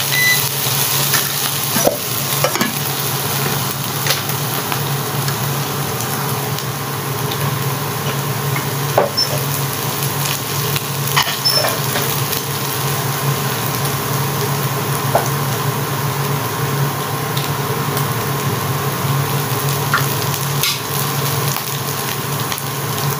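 Diced ham, hot dog, carrot and mushrooms frying in sauce in a nonstick pan, with a steady sizzle. A few light clicks and scrapes come from the wooden spatula against the pan.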